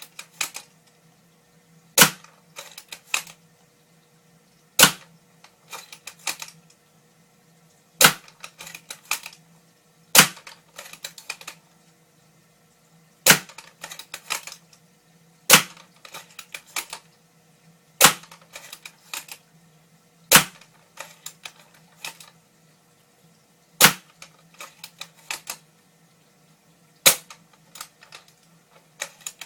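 Bolt-action spring airsoft sniper rifle firing about ten single shots, one every two to three seconds, each a sharp crack followed by a short run of softer clicks.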